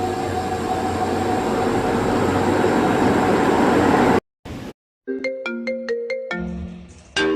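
A steady, noisy mechanical hum with a few held tones, building slightly, then cut off abruptly about four seconds in. After a short gap, an electronic ringtone-like melody of short plucked notes starts up.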